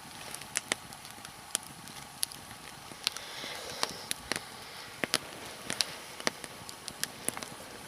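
Nodya log fire crackling: irregular sharp pops and snaps, a few to several a second, over a steady soft hiss of burning.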